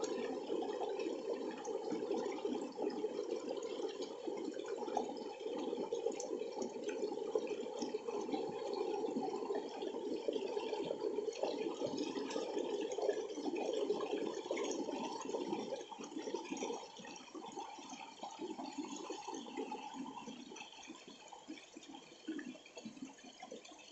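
Water cascading over stones, a steady rushing splash that grows gradually fainter over the last several seconds.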